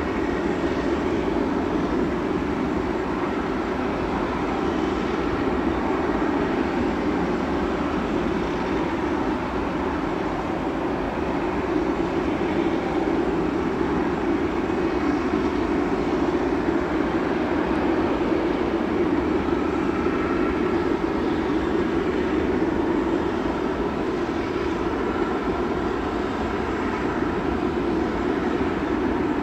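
The four GEnx jet engines of a Boeing 747-8F freighter running steadily, with no rise or fall in level.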